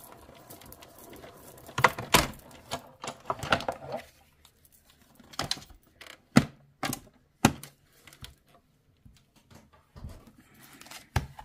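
Hand-cranked die-cutting and embossing machine feeding a plastic 3D embossing folder and its plates through the rollers, then a series of sharp plastic clacks, about half a dozen, as the plates come out of the machine and are handled.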